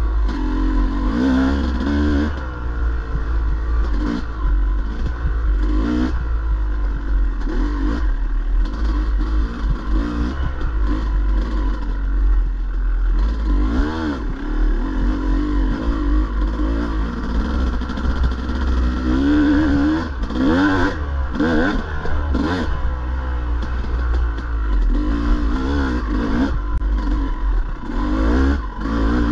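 Dirt bike engine revving up and down again and again as it is ridden hard over a rough enduro trail, with scattered clattering knocks.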